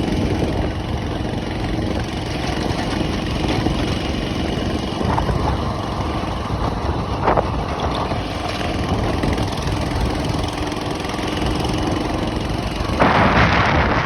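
A steady motor drone, with a louder rush of wind on the microphone near the end.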